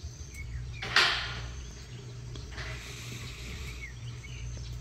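Outdoor ambience with a steady low rumble, a sharp knock or rustle about a second in, and a few faint bird chirps.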